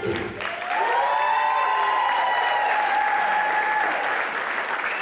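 Theatre audience applauding and cheering, swelling about a second in and holding steady.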